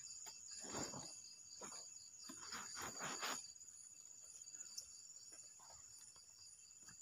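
Night insect chorus of crickets, a steady high-pitched chirring with a fast pulse. A few brief, louder noises come in the first three and a half seconds.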